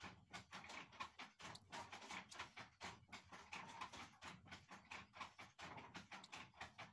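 Faint, rapid, irregular clicking and tapping, several clicks a second.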